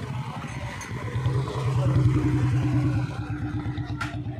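Motorcycle engine running under the rider, its firing pulses close to the microphone, getting louder about a second in as it pulls harder.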